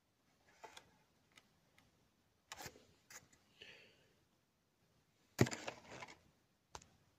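Cardboard box and plastic packaging being handled: scattered light knocks and a brief rustle, with one sharper, louder knock about five and a half seconds in.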